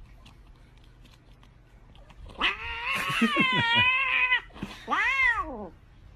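A cat yowling twice: a long, wavering yowl starting about two and a half seconds in, then a shorter meow that rises and falls in pitch near the end.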